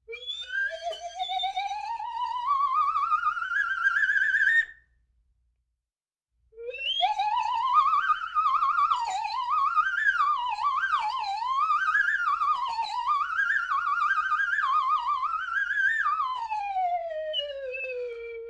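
Slide whistle in a cartoon-style series: one long wavering rise in pitch that cuts off after about four and a half seconds. After a short pause, a second run climbs fast, swoops up and down repeatedly, then slides down to a low held note near the end.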